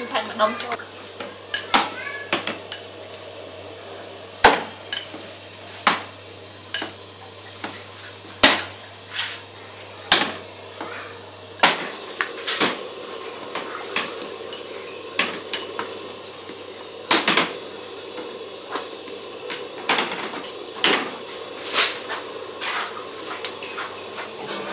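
Hands squeezing and mixing sliced raw meat in a stainless steel bowl and a ceramic bowl, with irregular sharp clinks and knocks against the bowls, often one or two a second.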